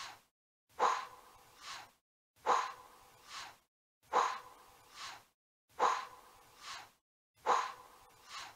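A short intro sound effect repeated on a loop about every 1.7 seconds, five times: each time a sudden breathy hit that fades, then a softer swell that rises and cuts off.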